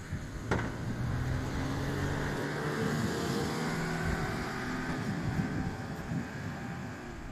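A vehicle passing with its engine running steadily, the sound swelling and then easing off over several seconds. A single sharp knock about half a second in.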